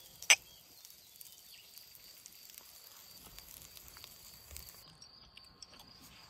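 Two glasses of beer clinked together once in a toast, a single sharp clink. After it comes quiet outdoor background with a faint, steady, high-pitched hum of insects.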